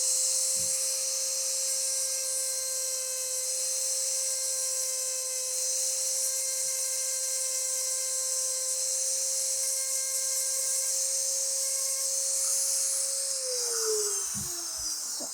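High-speed rotary tool running steadily with a high whine and hiss as it cleans up excess epoxy on a repaired wooden rifle stock. It is switched off about two seconds before the end, and the whine falls in pitch as it spins down.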